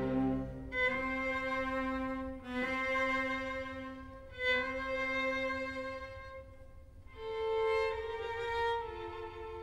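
Slow, calm background music of bowed string instruments, long notes each held for about two seconds before moving to the next.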